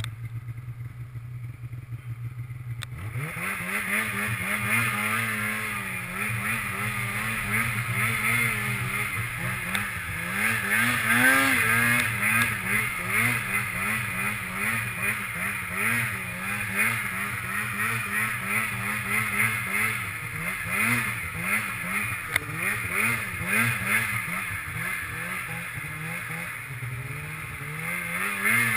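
Snowmobile engine heard close up from the hood. It runs steadily at low revs for about three seconds, then opens up and keeps revving up and down in repeated throttle surges as the sled is ridden through deep snow.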